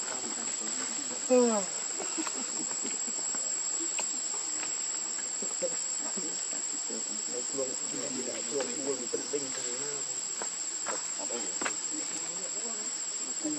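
Insects droning steadily in a high, continuous whine. About a second and a half in, a short call falls in pitch, and softer wavering calls come later.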